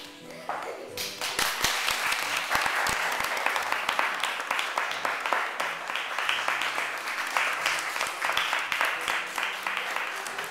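Audience applauding, many hands clapping at once, starting about a second in and keeping an even level.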